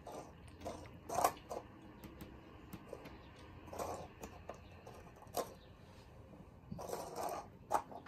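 House cats at their food bowls: a handful of faint, brief sounds spread a second or more apart.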